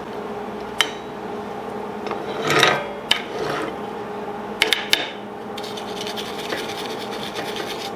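Metal scraping and clinking on steel, with sharp clicks, a louder scrape about two and a half seconds in, and a long run of fine scratching near the end. A steady hum sits underneath.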